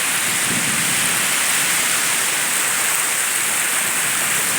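Ocean surf washing steadily onto a sandy beach, an even hiss with no distinct wave breaks.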